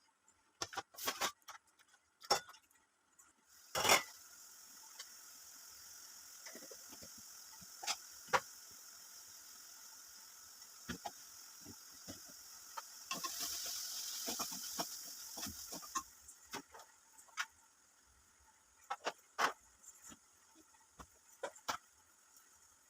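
Kitchen cooking sounds: scattered clinks and knocks of utensils. A steady hiss starts with a loud knock about four seconds in, grows louder for a few seconds near the middle, and fades out.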